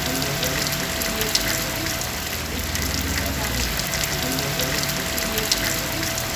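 Steady rain falling on a stone wall, seedlings in plastic grow bags and grass: an even hiss of rain dotted with the sharp hits of individual drops.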